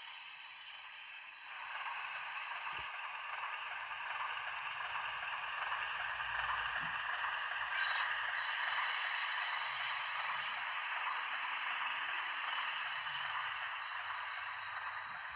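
OO gauge model class 03 diesel shunter running on track with its DCC sound decoder playing diesel engine sound through the model's small speaker. The sound is steady, growing louder about a second and a half in.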